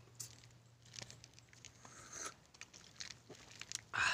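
Metal spoon scraping and clicking against a sea urchin's spiny shell as the roe is scooped out: a few faint, scattered scrapes and clicks, with a brief louder sound near the end.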